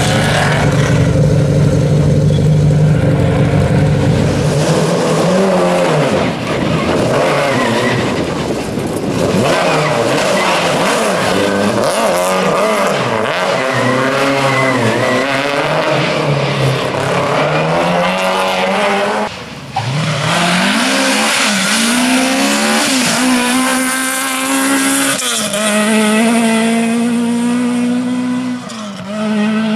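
Historic rally car engines revving hard, the pitch climbing and dropping again and again through gear changes as cars pass one after another. Near the start one car runs steadily at low revs close by. The sound breaks off briefly about two-thirds through.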